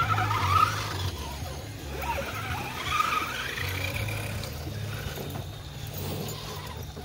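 Electric motor and gears of a radio-controlled rock crawler whining, the pitch gliding up and down with the throttle. A steady low rumble runs underneath.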